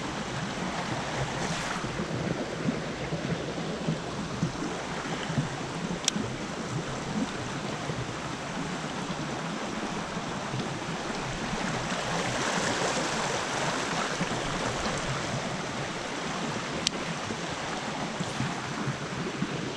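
Shallow creek water rippling and rushing over a rocky bed, a steady wash of noise. A few sharp ticks come through it, about six seconds in and twice near the end.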